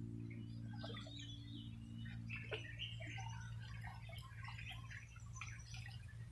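Small birds chirping and twittering in short, irregular calls over a steady low hum.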